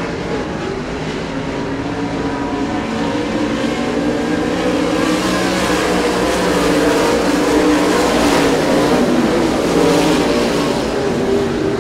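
Engines of a field of oval-track race cars running together around the track, several pitches overlapping, growing louder through the middle.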